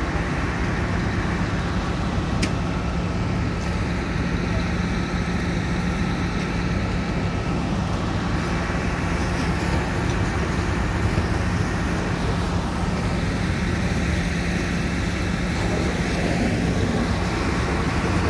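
Fire engine's diesel running steadily to drive its water pump for the hoses: a constant low drone with a steady hum that fades near the end.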